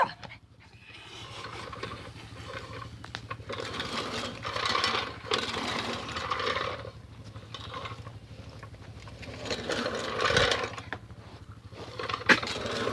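Lawnmower running with a low steady hum and rasping swells of noise that rise and fade every few seconds, while a dog worries at it.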